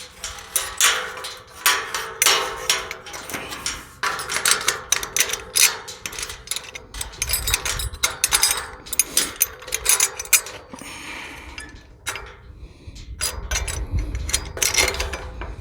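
Metal latch hardware clinking and knocking against a tubular metal gate as a slide bolt latch is fitted, in many sharp taps and knocks with a short lull about three-quarters through. A low rumble comes in near the end.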